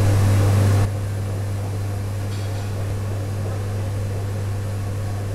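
Handheld kitchen blowtorch hissing as its flame browns marshmallows, over a steady low hum. The hiss drops abruptly about a second in.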